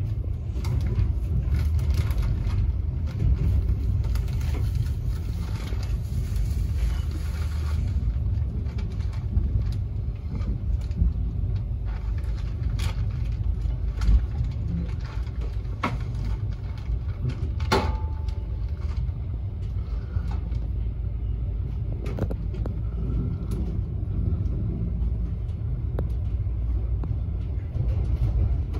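Passenger train running along the track, heard from inside the carriage: a steady low rumble with a few sharp clicks and knocks, the loudest about 18 seconds in.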